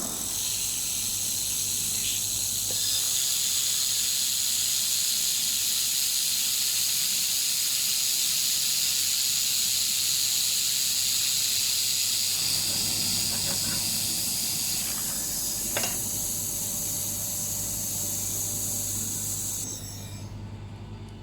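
Handheld laser welding machine running: a steady, loud high hiss from the welding head, over a low steady hum. The hiss cuts off near the end.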